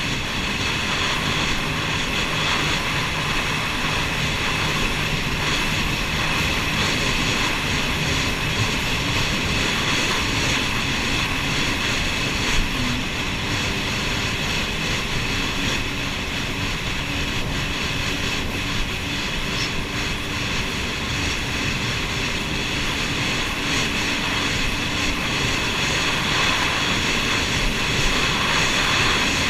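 Jet ski engine running steadily under way, a continuous drone with a rushing noise that holds level throughout.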